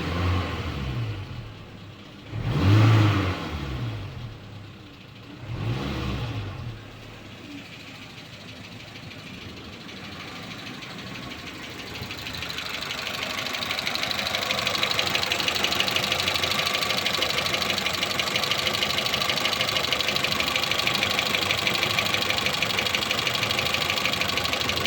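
Renault Twingo's D7F 1.2-litre petrol engine revved briefly three times, then idling with a fast, regular ticking that grows louder from about halfway through: the ticking noise that is the fault under investigation.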